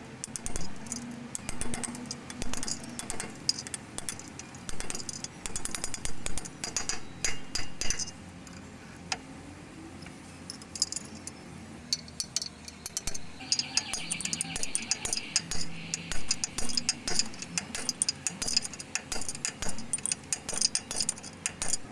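Metal hand tools and steel parts clinking and knocking in many short, sharp, irregular clicks, with a quicker run of clicking about two-thirds of the way through.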